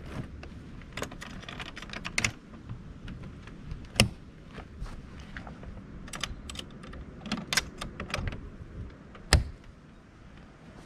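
Irregular light clicks and taps of hands working the metal and plastic fittings at the roof corner of a pop-top camper, with two sharper knocks about four seconds in and a little after nine seconds.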